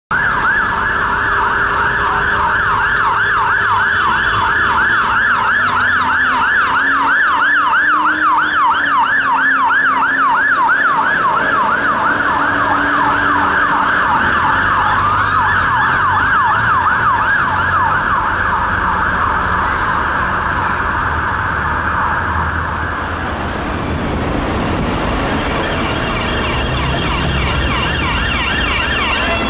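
UK emergency vehicle sirens: a fast yelp sweeping up and down, briefly slowing to a wail about halfway, then giving way to engine and traffic noise for the last several seconds.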